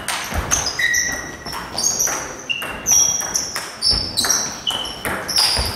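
Table tennis doubles rally: the ball clicks sharply off the bats and table in quick succession, many hits ringing with a short high ping, about two to three a second.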